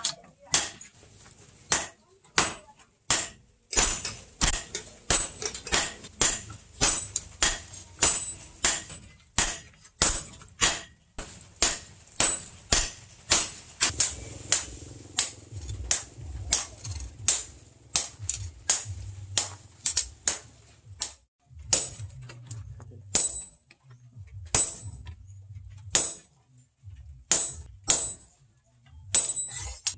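Hammer blows on a red-hot steel axe blank resting on a steel post anvil, about two a second, each with a bright metallic ring. Over the last third the blows come in short groups with pauses between.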